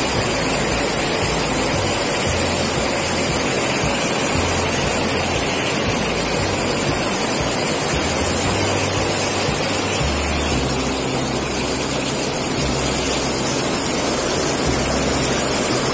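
Fast-flowing water churning white in a narrow concrete-lined channel: a steady, loud rushing.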